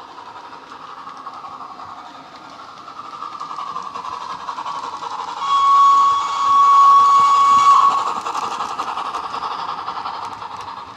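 Steam locomotive sound played through the speaker of a LokSound DCC sound decoder in a Hornby Dublo model of the LNER A3 Flying Scotsman. A steady running sound grows louder as the train approaches, and a long whistle of about two seconds starts about halfway through.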